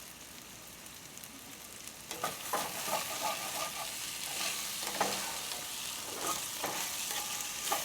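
Food sizzling in a frying pan while being stirred and scraped with a utensil. The sizzle gets louder about two seconds in, with frequent small scrapes and clinks.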